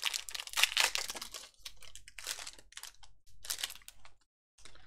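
Foil wrapper of a trading card pack crinkling and tearing as it is opened by hand, a quick run of irregular rustles that thin out near the end.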